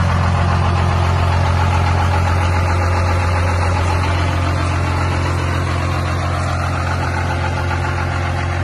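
Lifted pickup truck's diesel engine idling steadily, exhausting through a straight pipe, with no revving.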